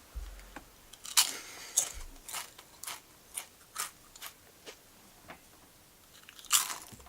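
A series of about ten short, sharp crunching noises at uneven spacing, the loudest about a second in and again near the end.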